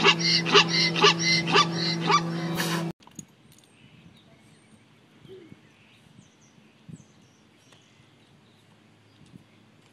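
Zebra barking call, a rapid series of yelps about three a second over a steady low drone, cutting off suddenly about three seconds in. After that comes faint outdoor background with a few small chirps and ticks.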